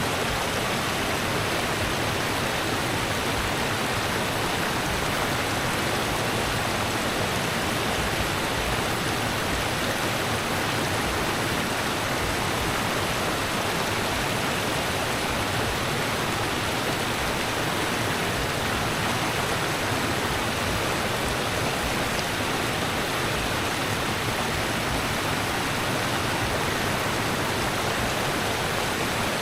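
Rushing river water, a steady unbroken hiss of flowing water with no change in level.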